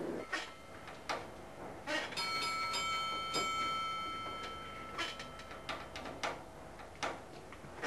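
A bell struck once, ringing out and fading over about three seconds, among scattered clicks and knocks.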